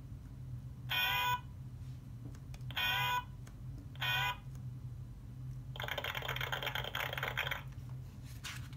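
A children's sound book's small electronic speaker plays a short electric-guitar sound clip three times as its button is pressed, each under half a second with bending notes. About six seconds in comes a longer, rougher clip of nearly two seconds.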